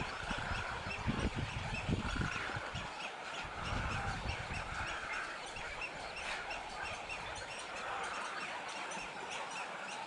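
Birds calling in a mangrove: a steady run of short, high chirps repeating several times a second, with low rumbling in the first three seconds.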